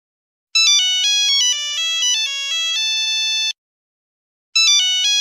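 Mobile phone ringtone: a short electronic melody of stepped notes, about three seconds long. It starts again after a second's pause.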